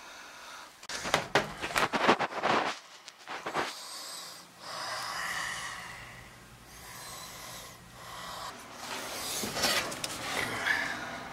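Rustling and scraping with two runs of sharp metallic clatter, one about a second in and one near the end: galvanized sheet metal and hand tools being handled around the furnace base.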